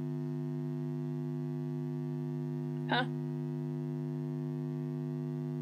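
Steady electrical hum made of several even tones, with one short vocal sound about three seconds in.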